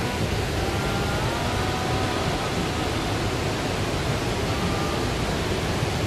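Steady rushing noise of the Bou Sra waterfall, constant in level.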